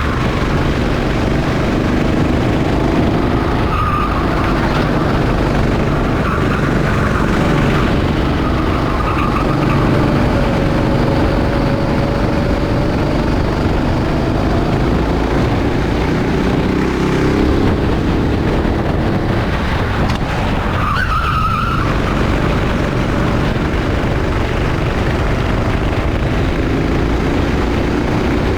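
Rental go-kart engines running at racing speed, their pitch rising and falling as the throttle is worked through the corners. Tyres squeal briefly a couple of times, near the start and about two-thirds of the way in.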